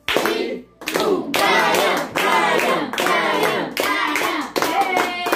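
Hands clapping in a steady beat while a small group of people sing a birthday song around a cake with lit candles.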